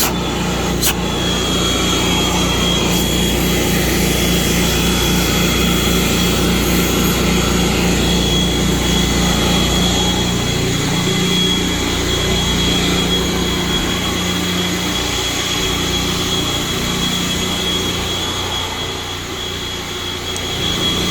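A Predator 8750 portable generator's single-cylinder gasoline engine runs steadily under an electrical load, with a thin, steady high whine over the engine drone. The deepest part of the drone weakens about halfway through.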